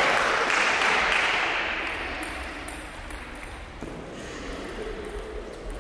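Spectators applauding, dying away over the first two seconds, then a few light, sharp pings of a table tennis ball as play gets ready to resume.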